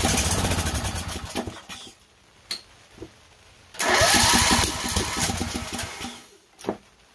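Lawn tractor engine being cranked by its electric starter in two attempts of about two to three seconds each, a fast even chugging that fades away each time without the engine catching.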